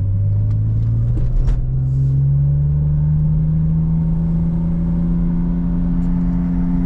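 Lexus IS300's 2JZ-GE inline-six through an aftermarket HKS exhaust, heard from inside the cabin as the car accelerates: the engine note rises over the first couple of seconds, then holds steady at cruise. A few light knocks about a second in.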